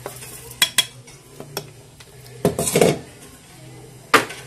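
Light clinks of a stainless-steel mixer-grinder jar against a bowl as ground powder is tipped out. A longer rattling scrape comes about two and a half seconds in, and a sharp knock near the end as the bowl is set down.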